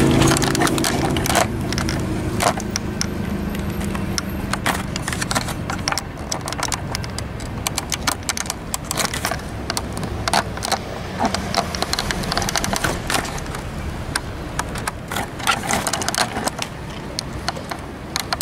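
Freight train's boxcars rattling and clanking on the rails, with many irregular sharp knocks and clicks. A passing car's engine fades out in the first few seconds.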